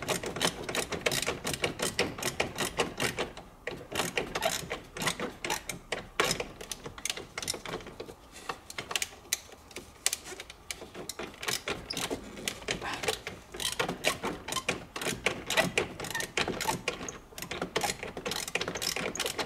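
A ratchet spanner clicks rapidly in long runs as a nut holding a dashboard panel is undone. There are short pauses about 4 and 9 seconds in.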